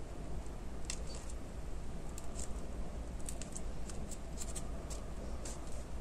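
Faint scattered clicks and rustles of hands working a needle and thread through gathered satin ribbon to finish off a stitch, over a low steady hum.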